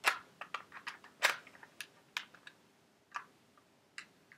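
Irregular sharp plastic clicks and clacks, about nine, from handling a Beretta P4 Storm spring airsoft pistol, with the loudest clack about a second and a quarter in.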